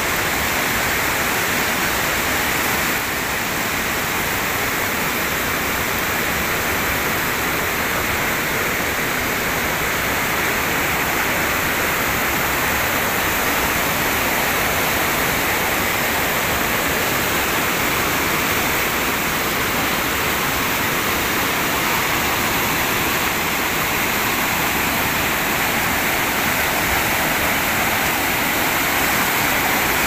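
Steady rush of a mountain stream pouring and cascading over boulders.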